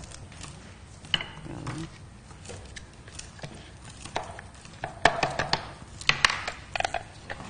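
Kitchen knife chopping vegetables on a cutting board: irregular taps, with a run of quicker chops about five seconds in.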